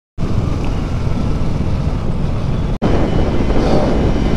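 Motorcycle on the move, heard as wind rushing over the microphone with the engine and road under it: a dense low rumble that cuts in just after the start and drops out for an instant near three seconds in.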